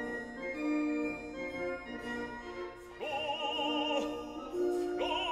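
Background classical music in operatic style: held orchestral notes, then a singer's voice with a wide vibrato coming in about three seconds in.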